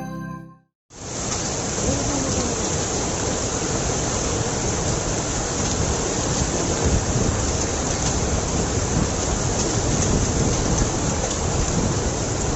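Hailstorm with heavy rain: a dense, steady hiss of rain and hailstones pelting down, with faint scattered ticks of hail striking, starting abruptly about a second in.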